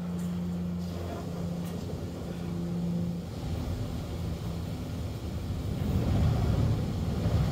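Automatic spray car wash heard from inside the car: water and soap spraying and running over the roof glass, a rushing hiss that grows louder about six seconds in, over a steady low hum.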